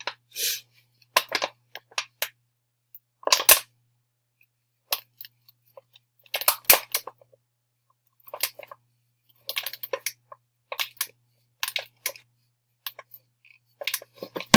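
A paper-towel packet of baking soda being worked into an empty plastic water bottle: irregular rustling and crinkling of paper and thin plastic, with two sharper knocks, one a few seconds in and one about halfway through.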